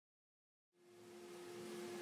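Dead silence for about the first half, then faint room tone with a steady low hum fading in and slowly growing louder.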